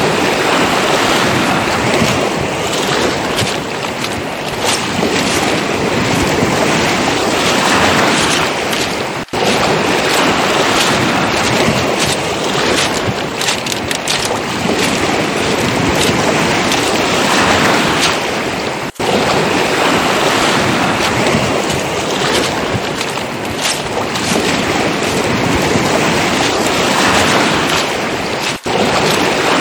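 Footsteps crunching on beach pebbles, with sea waves surging in slow swells and wind on the microphone. The sound drops out for an instant three times, about ten seconds apart.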